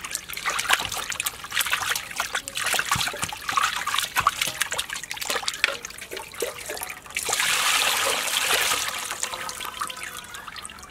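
Water splashing and sloshing in a stainless-steel bowl as hands rub a chunk of raw pork in it. About seven seconds in, a steadier trickle of water runs off the lifted meat back into the bowl, then dies away.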